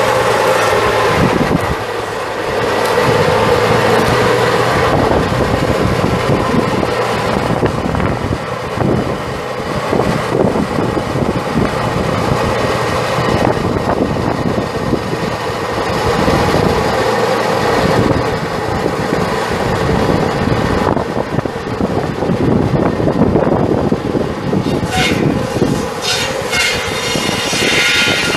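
Case 7.5L six-cylinder turbo diesel engine of a Case IH MXM130 tractor running steadily, with a continuous mechanical rattle.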